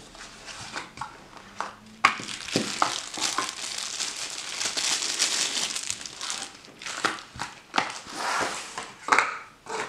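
Crinkling and rustling of wrapping being handled, with scattered sharp clicks.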